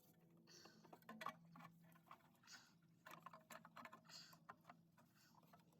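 Near silence with faint scattered clicks and rustles of hand work on an engine's parts.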